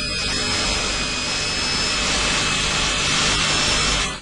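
Hand-held rotary grinder with a tungsten carbide grinding wheel running at speed against the steel cords of a radial truck tyre, a steady high-pitched whine over a harsh grinding hiss that cuts off abruptly at the end. The damaged, rusty cord area of the injury is being buzzed out to prepare it for a section repair.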